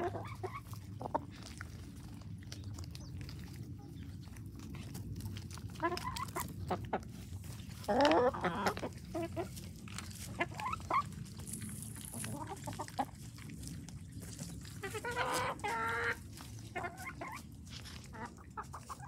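Hens clucking in several separate bursts as they feed, the loudest about eight seconds in, with light taps of beaks pecking at the ground between the calls.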